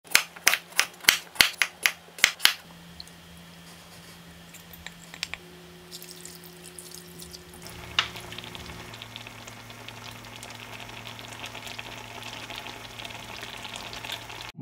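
A knife chopping purple sweet potato on a wooden cutting board, about eight quick chops in the first two and a half seconds. Then a pan of Korean spicy chicken stew simmering, with a crackling sizzle that builds from about eight seconds in.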